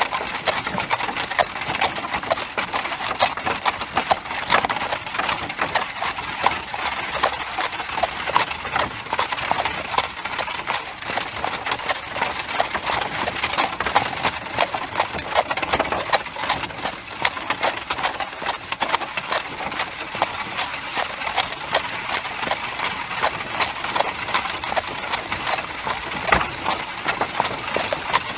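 Horse hoofbeats: a dense, continuous run of sharp, irregular clicks with no pause.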